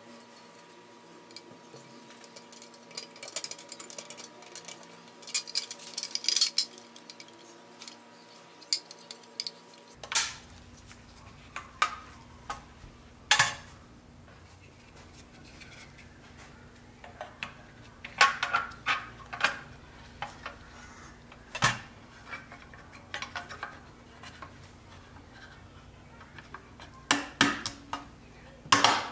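Light metallic clinks and taps of pressed-steel toy parts being handled and fitted together. They come in scattered clusters, and the sharpest come near the end.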